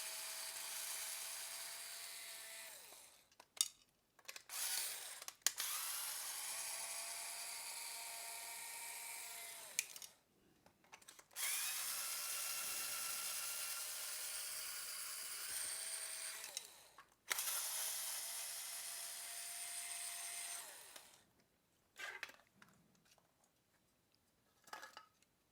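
Small electric screwdriver motor running in repeated bursts of about three to five seconds, four long runs and one short one, each spinning up and winding down as it drives screws on the radio unit's housing. A few faint clicks follow near the end.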